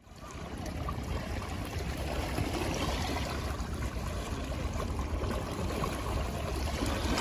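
Sea water washing and lapping against shoreline rocks: a steady rushing wash with a low rumble beneath it, fading in over the first second.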